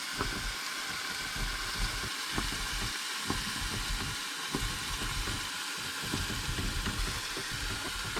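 Food sizzling in a hot frying pan: a steady hiss with scattered small pops, over an uneven low rumble.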